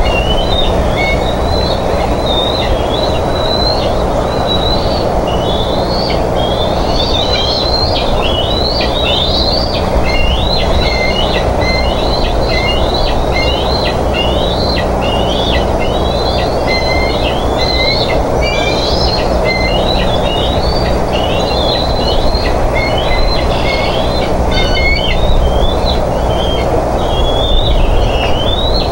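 Bald eagle eaglets food-begging: a steady run of high, squealing chirps, about two a second, while they compete over a fish. Under the calls is a steady low hiss and hum.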